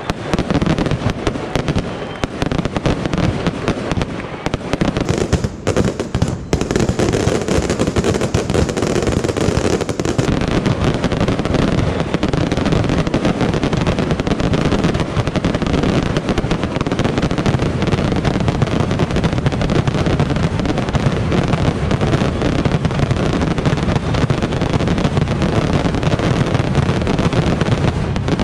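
Mascletà firework barrage: a dense, continuous rattle of firecracker bangs with crackling aerial shells bursting overhead, dipping only briefly about six seconds in.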